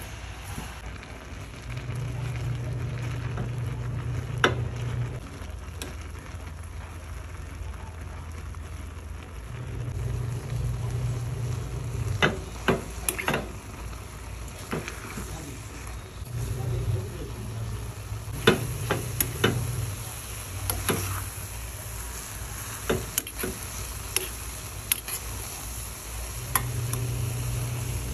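Apple pieces cooking with sugar and cinnamon in a pan, sizzling, while a spoon stirs them and clinks against the pan now and then. A low hum comes and goes several times.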